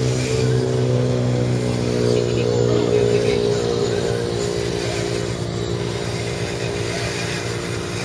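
A steady mechanical hum made of several even tones, strongest for the first three seconds or so and then fading somewhat.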